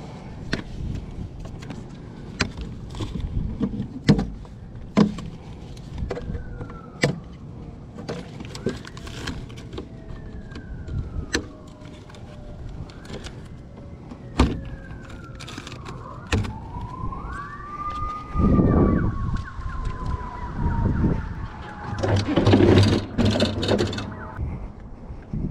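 Emergency-vehicle siren wailing, its pitch sweeping slowly up and down in long rises and falls, over scattered sharp knocks and clatter.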